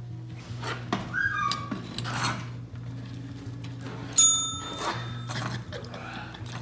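Smiley-face desk call bell struck once by a goat pressing it with her nose: a single bright ding about four seconds in that rings and fades over about half a second. A few softer knocks come before it.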